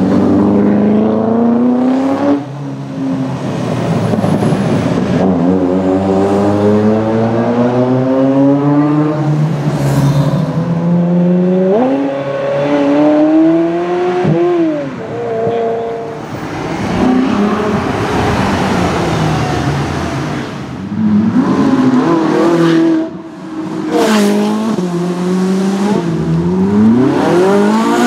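Ferrari supercar exhausts, among them an F40 and a 360, in a series of short clips. The engines accelerate hard, the pitch climbing through each gear and dropping back at every upshift, and the cars pass close by.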